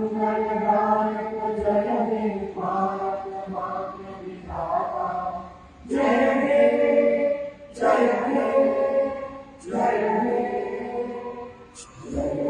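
A group of voices singing a slow song together in long, held phrases with short breaks between them.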